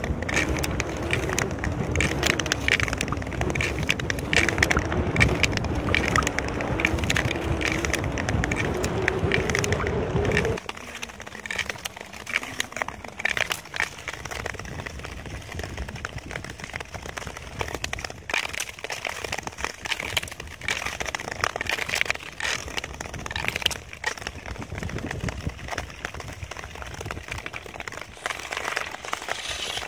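Ice skate blades scraping and crackling on natural ice as the skater strides, with short sharp scrapes and cracks. For the first ten seconds a loud low rumble with a wavering tone runs over the scraping, then it cuts off abruptly.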